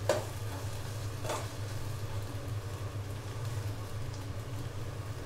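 A spoon scraping the bottom of a stainless-steel kadai while stirring sautéed brinjal, tomato and green chillies that have begun to stick to the pan, twice in the first second and a half. Under it are a steady low hum and faint sizzling.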